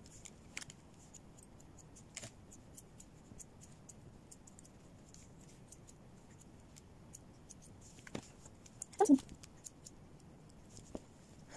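Grooming scissors snipping through a dog's thick fur, a run of small, quick clicks. About nine seconds in there is one brief, louder pitched sound.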